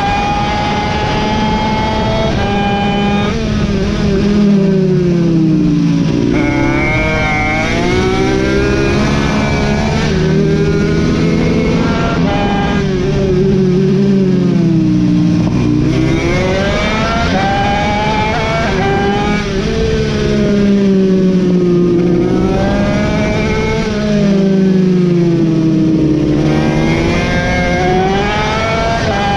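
Racing mini bike engine heard onboard at full race pace, its pitch dropping as the rider brakes into corners and climbing again as it revs hard out of them, several times over.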